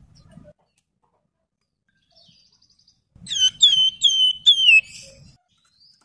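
Javan fulvetta (wergan Jawa) singing a phrase of five clear whistled notes, each one dipping and then holding its pitch, starting about three seconds in after a quiet stretch. A faint buzzy trill comes just before the phrase.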